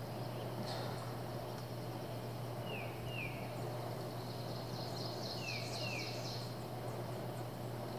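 Outdoor ambience: a steady low hum and background noise. Over it a bird calls two short down-slurred whistles, twice, with higher twittering about a second in and again around five to six seconds.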